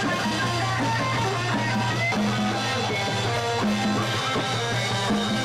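Live band playing: electric guitar over a drum kit and conga drums, with a steady low bass line.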